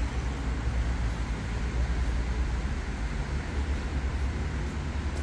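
Steady city street traffic noise from passing road vehicles, mostly low in pitch.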